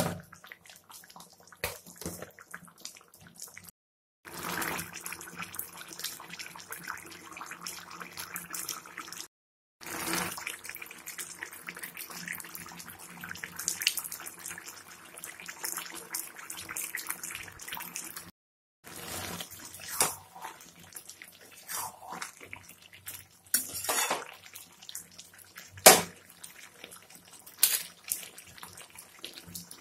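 Potatoes in thick poppy-seed gravy simmering in a pan over a gas burner: a steady bubbling, crackling hiss, with a few sharp clicks in the second half.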